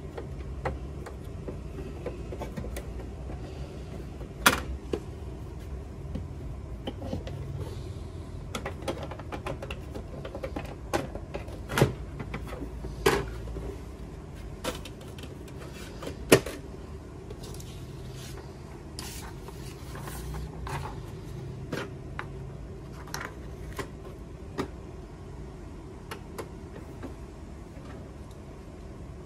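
Plastic clicks and knocks from handling a Canon inkjet printer's hinged rear paper-support cover as it is fitted back onto the printer. A few sharp knocks stand out among lighter taps, over a low steady hum.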